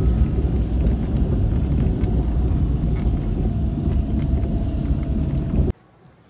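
Road and engine noise of a moving car heard from inside the cabin, a dense low rumble with some wind. It cuts off abruptly near the end.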